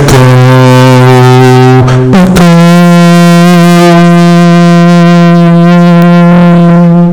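A man's voice holding long sung notes into a microphone with its echo effect switched on, very loud; the pitch steps up to a second held note about two seconds in.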